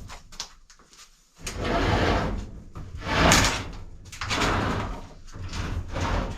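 Heavy appliance being moved on a dolly with flat wheels: a few knocks, then three long scraping, rolling swells.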